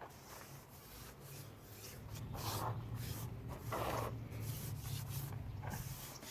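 Light hand sanding of a primed car bumper: irregular rubbing strokes, the loudest about two and a half and four seconds in, over a low steady hum.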